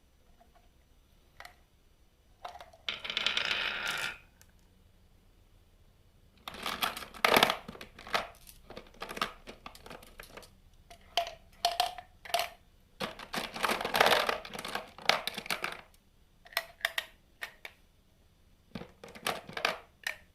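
Marbles rolling and clacking down a marble run. A short steady roll about three seconds in, then a long stretch of dense rattling clicks and rolling, with single clicks scattered around it.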